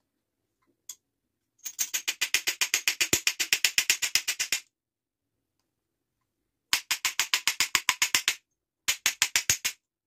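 Rapid light hammer taps on a vacuum cleaner motor's armature shaft, about eight a second, in three runs: one of about three seconds, then two shorter ones near the end. A single click comes about a second in.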